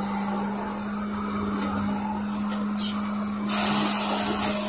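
LiAZ-5280 trolleybus under way, heard from inside the passenger cabin: a steady low hum over running and road noise. About three and a half seconds in, a steady hiss sets in and the overall level rises slightly.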